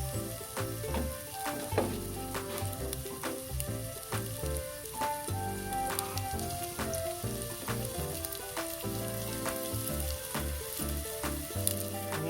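Breaded chicken pieces frying in hot oil, a steady sizzle with sharp crackles and pops. Background music with a bass line plays along.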